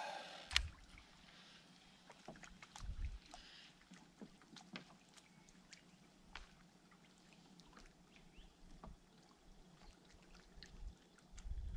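Faint water sounds around a fishing kayak: scattered small ticks and drips, with a few soft low thumps about half a second in, around three seconds, and near the end.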